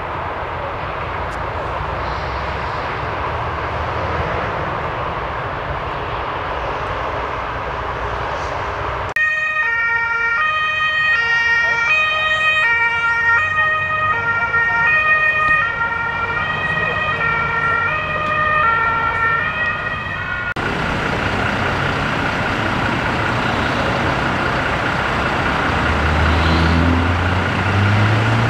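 A German emergency vehicle's two-tone siren, alternating between two pitches, cuts in abruptly about a third of the way through and cuts off again about ten seconds later. Before and after it, a steady rush of motorway traffic; near the end, a vehicle's engine rises in pitch as it pulls away.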